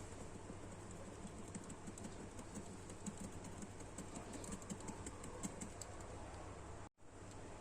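Light, irregular clicking and tapping of small plastic action-figure parts and hand tools being handled during a repair, over a steady low hum. The sound cuts out briefly near the end.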